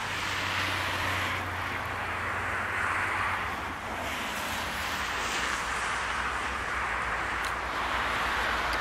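Steady rumble of a double-deck TER electric train approaching along the track from a distance, with a low hum that fades about halfway through.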